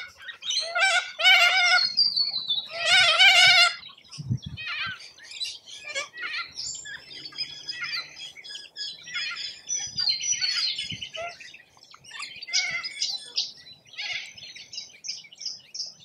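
Little corellas screeching: several loud, harsh calls in the first four seconds, followed by quieter high chirps and twittering from birds at the feeder.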